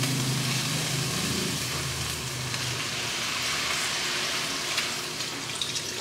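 Chicken broth poured from a carton into a hot pan of cooked chicken, sizzling steadily as the liquid hits the pan.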